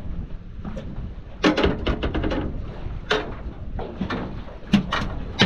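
Knocks and clatters of a boat's ice box being handled: a quick run of rattling knocks, then a few single knocks. A low steady rumble runs under them.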